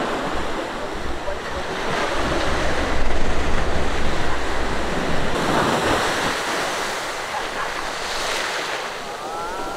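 Wind buffeting the microphone over a steady wash of seawater, the gusts strongest a few seconds in.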